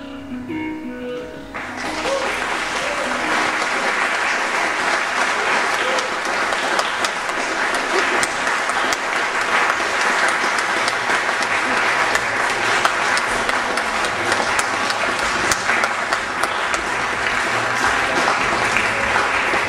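The music's last few notes, then about two seconds in an audience breaks into applause that carries on steadily.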